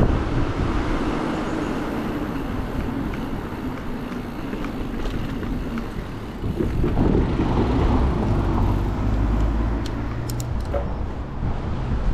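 Wind buffeting the microphone and tyre rumble from a bicycle riding along a tarmac road, with a deeper rumble swelling for a few seconds past the middle.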